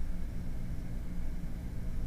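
Steady low hum with a haze of hiss: background room noise with no distinct events.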